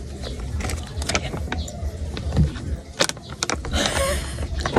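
Handling noise of a small plastic Yakult bottle and a plastic vinegar sachet being squeezed into it: a run of sharp clicks and crinkles over a steady low rumble. Near the end, a short breathy exclamation.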